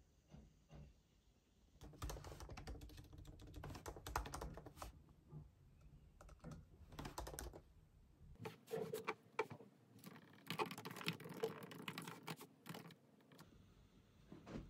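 Fingers typing on a MacBook laptop keyboard: quick runs of light key clicks with short pauses, in two stretches, stopping about 13 seconds in.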